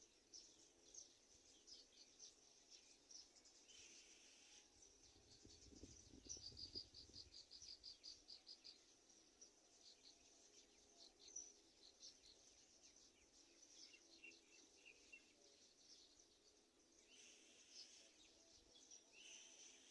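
Faint high-pitched chirping and trilling of small outdoor creatures, including a quick run of pulsed chirps about six seconds in, with a brief low rumble at the same moment.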